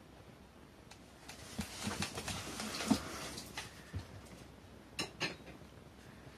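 Two cats scuffling in a cardboard box: a couple of seconds of rustling and scraping against the cardboard with small knocks, then a soft thump as one cat climbs out, followed by two sharp clicks.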